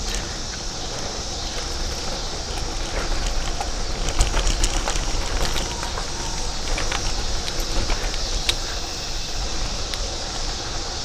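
Bicycle ridden over broken, cratered pavement: low wind and road rumble with scattered sharp rattles and knocks from the bike, heaviest a few seconds in.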